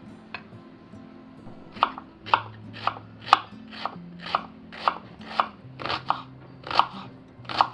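Kitchen knife chopping a red onion on a wooden chopping board: sharp, even cuts about two a second, starting about two seconds in. Soft background music underneath.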